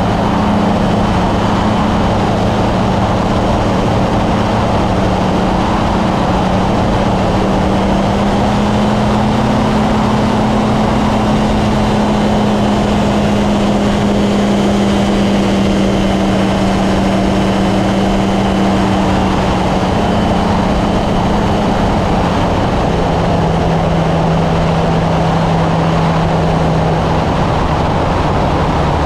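Kolb Firefly ultralight's engine and propeller running steadily in flight, over a dense rush of wind noise; the engine note drops a little about three-quarters of the way through.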